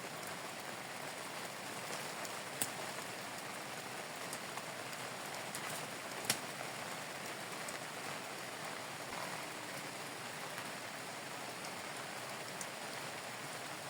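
Steady rain falling, with two sharper drops landing close by, one about two and a half seconds in and one about six seconds in.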